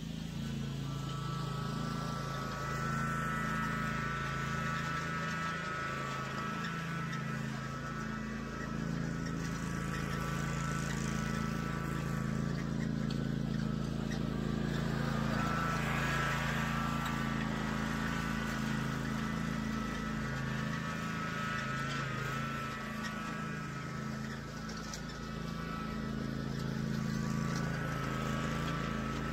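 Toro zero-turn mower engine running steadily as it drives past towing an Agri-Fab tow-behind plug aerator, with a higher whine over the engine note. It grows louder about halfway through as it passes closest.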